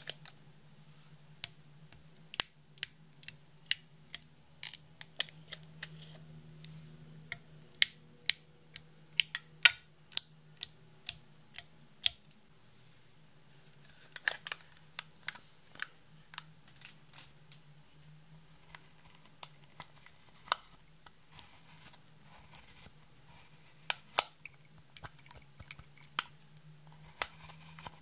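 Sharp clicks and taps of plastic cosmetic packaging handled over a plastic tray: a dropper bottle of liquid highlighter and an eyeshadow compact. The clicks come about two a second at first, bunch together in a quick flurry about halfway through, then thin out.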